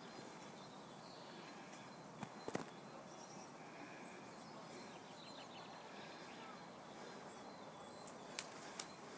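Faint outdoor background hiss with a few faint bird chirps, and a few sharp clicks about two and a half seconds in and again near the end.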